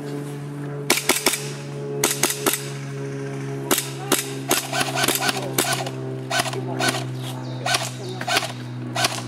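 Airsoft guns firing, a series of sharp pops in quick clusters starting about a second in, over a steady low hum.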